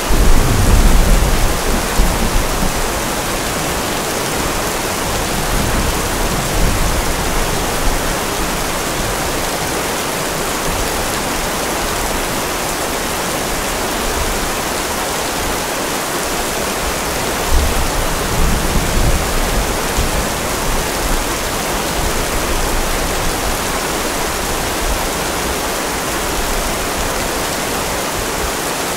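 Steady rain with two rolls of thunder. The first rumble comes right at the start and is the loudest sound, fading over about three seconds; the second comes about eighteen seconds in.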